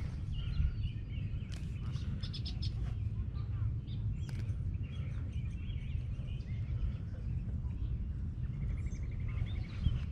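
Wind rumbling on the microphone, with birds chirping and a short fast trill near the end.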